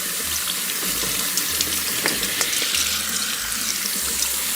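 Hot water running steadily from a kitchen tap into a sink, splashing over items in a strainer, with a single sharp click about two seconds in.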